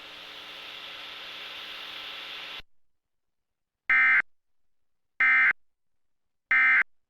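Emergency Alert System end-of-message data bursts: three short, loud, buzzy electronic screeches about 1.3 s apart, signalling the end of the alert. Before them a steady hiss runs for a couple of seconds and then cuts off.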